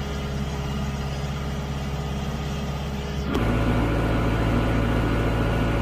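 Kubota tractor's diesel engine running steadily, heard from inside its cab. The engine sound becomes louder about three seconds in.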